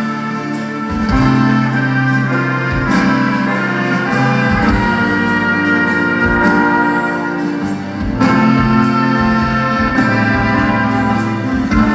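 A live band playing an instrumental passage between sung lines: held melody notes over a bass line that changes note every second or two.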